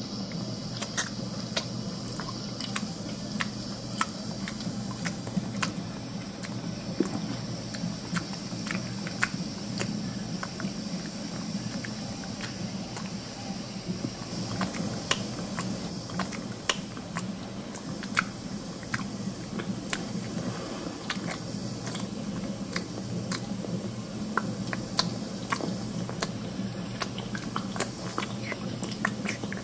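Two domestic cats licking each other's fur up close: repeated wet clicks and rasps of their tongues over a steady low hum.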